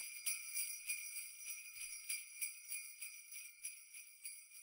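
Sleigh bells jingling in a steady beat, about three shakes a second, fading out near the end.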